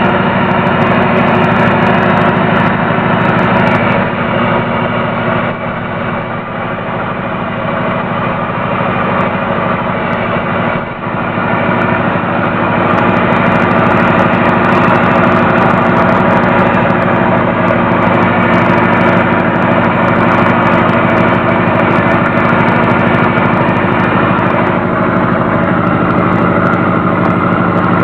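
1980 Kenworth truck's diesel engine running steadily under way, heard from inside the cab. It eases off for several seconds midway, with a brief drop about eleven seconds in, then pulls steadily again.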